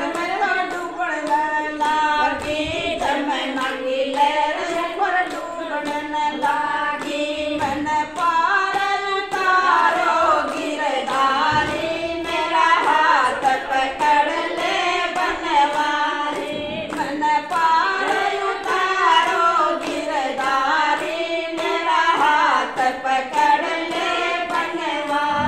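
Voices singing a Gujari bhajan, a folk devotional song, with a melody that rises and falls over a steady, even beat.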